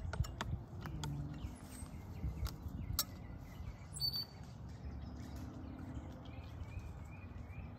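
Quiet outdoor ambience: small birds chirping faintly, a low wind rumble, and a few light sharp clicks in the first few seconds.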